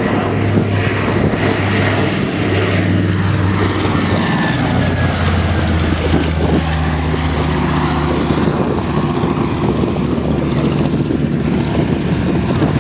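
Catalina flying boat's twin Pratt & Whitney R-1830 radial engines droning steadily on a low pass, the engine note dropping in pitch about four and a half seconds in as the plane goes by.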